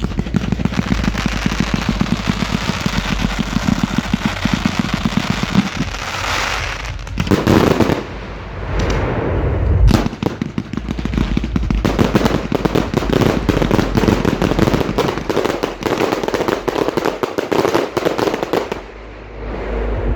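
Fireworks going off at close range: long runs of rapid popping and crackling, with a heavier burst about seven seconds in and a sharp bang about ten seconds in.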